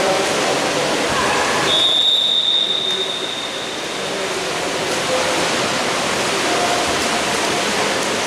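Water polo game in an indoor pool hall: a steady wash of splashing water and scattered shouting voices. A long, single-pitched whistle blast, typical of a referee's whistle, starts sharply about two seconds in and lasts about two seconds.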